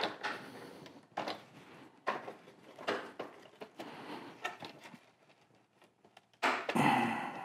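Plastic trim tool prying at a push-pin clip in a plastic bumper cover: a series of short clicks and knocks, then a louder, longer sound near the end.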